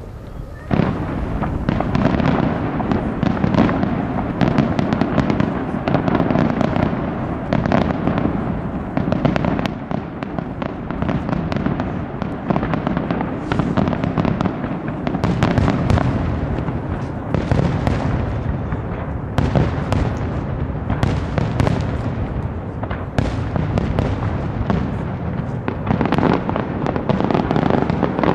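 Fireworks display: a dense, continuous barrage of shells bursting, with many overlapping bangs and crackles. It gets louder about a second in.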